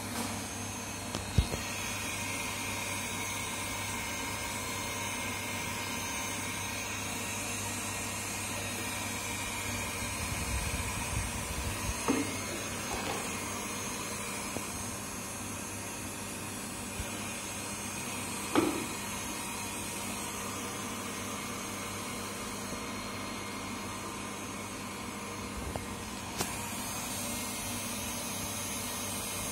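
Steady hum of an electric motor, like a blower or fan, running unchanged throughout, with a few brief sharp sounds about a second in, about twelve seconds in and again about six seconds later.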